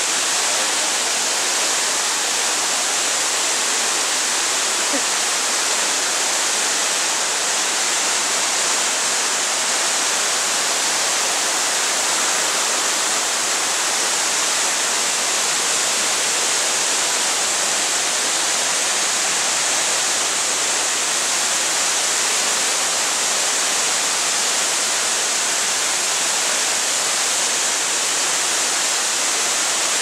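A wide curtain waterfall, many thin falls pouring over a rock face into a pool, making a steady, unbroken rush of water with much hiss.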